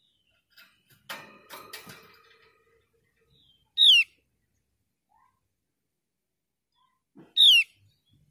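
Javan grey-throated white-eye calling: two loud, short, clear whistled notes that slide downward, about three and a half seconds apart. Before them, about a second in, a quieter scratchy rattle.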